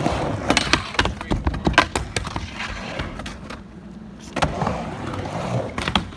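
Skateboard riding a ramp bowl: wheels rolling, with many sharp clacks and knocks of the board and trucks hitting the ramp and its coping. There is a quieter stretch a little past the middle.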